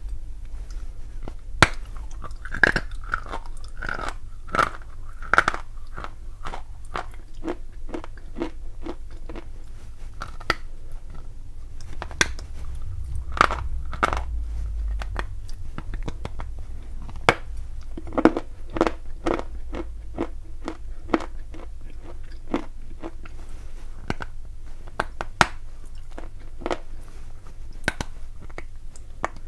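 Lumps of edible chalk and clay being bitten and chewed: an irregular run of sharp, crisp crunches and cracks, some louder than others.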